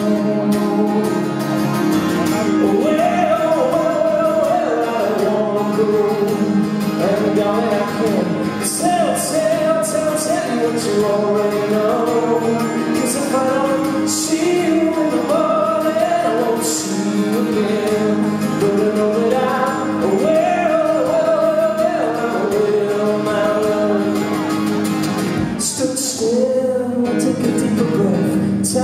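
A man singing a melody over his own acoustic guitar, a live solo song performance.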